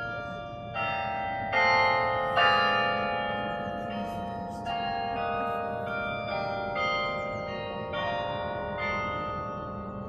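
The 68-bell Carillon of Berlin's Tiergarten, played by hand: a slow melody of struck bell notes, a new note about every second, each ringing on and fading while the next sounds, the loudest two about two seconds in.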